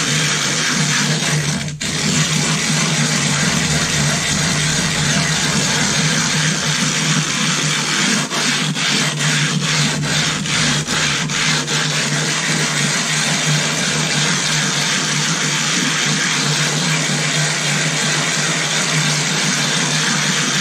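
Silicon carbide sharpening stone being lapped by hand on a flat plate with wet loose abrasive grit, to flatten its fine face: a continuous gritty grinding scrape. It breaks off briefly just under two seconds in, and halfway through it breaks into a run of short strokes.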